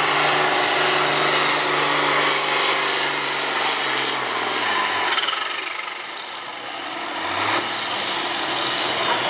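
International Harvester tractor's diesel engine running hard under load, pulling a weight-transfer sled. About five seconds in the engine note falls in pitch and level, and a high whistle slides downward. There is a brief rev shortly after.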